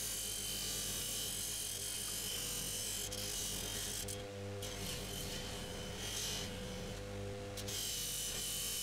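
Bench polishing motor running with a steady hum while a metal lathe part is pressed against its spinning buffing wheel, a loud rubbing hiss that breaks off briefly a few times as the part is lifted and repositioned.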